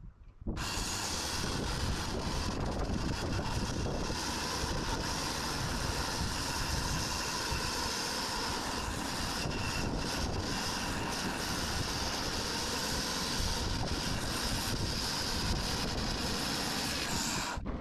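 Sawmill running, its blade cutting through an ash log: a loud, steady mix of motor and cutting noise that starts abruptly about half a second in and stops abruptly near the end.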